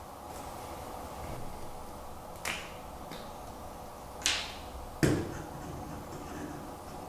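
Handling noise of small kit parts: three sharp clicks and taps as pieces and a glue tube's plastic cap are picked up and set down on a cutting mat, the loudest about five seconds in, over steady background noise.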